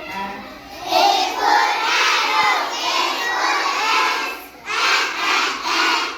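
A group of children chanting an alphabet phonics drill together in unison, in two phrases, the second starting near the end.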